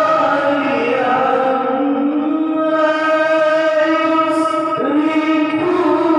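A slow melody of long held notes, sung without words, gliding smoothly from one pitch to the next with barely a break.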